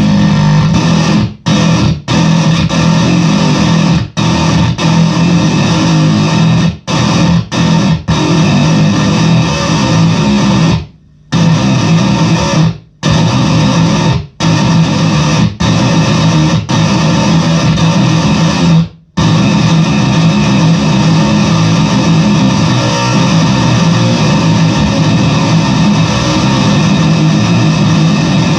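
Fender Squier VI six-string bass played through a fuzz pedal: thick, heavily distorted sustained notes that cut off abruptly into short silences again and again, then ring on unbroken through the last third.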